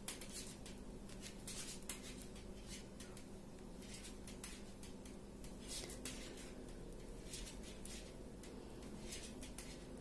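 Hand-knitting needles faintly clicking and scraping as stitches are worked, a string of small irregular ticks over a low steady hum.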